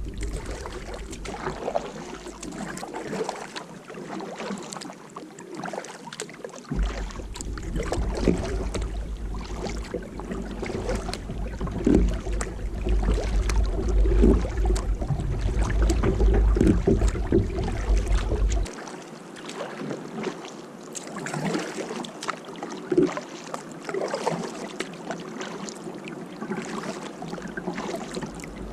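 Kayak paddle strokes dipping and splashing in lake water, with water dripping and sloshing. For about twelve seconds in the middle, wind rumbles on the microphone.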